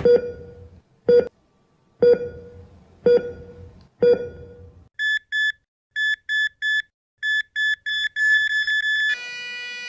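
Heart-monitor sound effect: five low pings about a second apart, then higher, short beeps that come faster and faster into a rapid run. About nine seconds in they end in one steady flatline tone.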